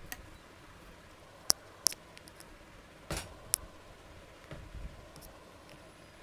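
Quiet room tone broken by scattered handling noises: two sharp clicks about a second and a half in, then a short scraping rustle and another click about three seconds in, and a faint knock near the five-second mark.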